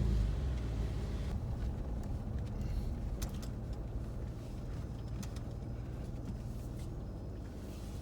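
Car running at low speed, a steady low engine and road rumble, with a few faint clicks.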